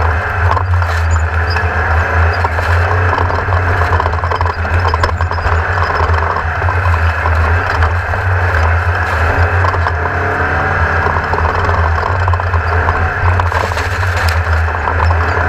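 Class 1600 off-road race buggy's air-cooled VW-based engine running steadily at speed, with a low drone and loud wind and terrain noise.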